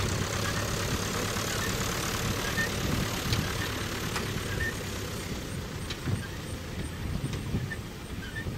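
A Jeep's engine idling steadily, with a few faint short chirps above it.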